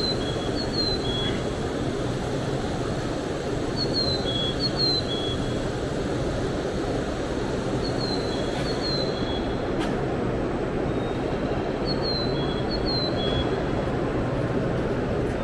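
Steady hum and hiss of a Shinkansen bullet train standing at a station platform. Pairs of short, high chirps repeat about every four seconds over it.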